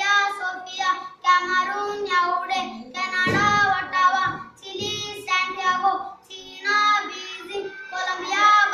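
A boy singing a song solo and unaccompanied, in phrases of held notes with short breaks between them.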